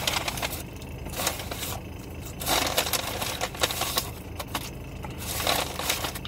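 Paper takeout bag rustling and crinkling in irregular bursts as it is rummaged through, over a steady low hum.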